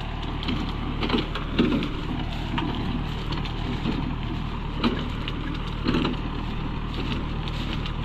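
Compact farm tractor engine running steadily as it pulls a rear-mounted rotary tiller through tall grass, with scattered louder crackles every second or so as stalks break under it.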